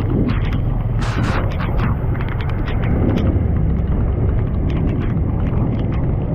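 Motorbike in motion: a steady low engine and road rumble with wind buffeting the microphone and scattered small knocks and clicks.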